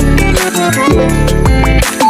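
Loud electronic background music with a heavy sliding bass and a steady drum beat.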